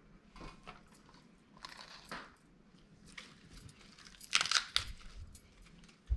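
Fresh lettuce and herb leaves rustling and crackling as they are picked from a platter and laid on a softened rice paper wrapper, in several short bursts, the loudest about four and a half seconds in. A short low thump comes right at the end.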